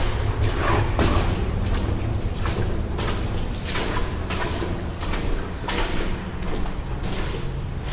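Footsteps at a steady walking pace, about three steps every two seconds, each a short scuffing crunch, over a steady low rumble.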